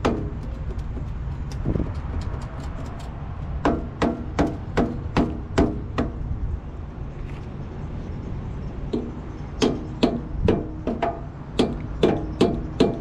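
Hammer blows knocking a part into place while a truck quarter fender is being fitted, each strike ringing briefly. About five strikes come a few seconds in, then a quicker run of strikes near the end, over a low steady rumble.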